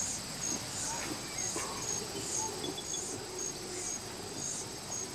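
Insect chirping, a high pulsing call repeating about twice a second at a steady rate, over faint forest ambience.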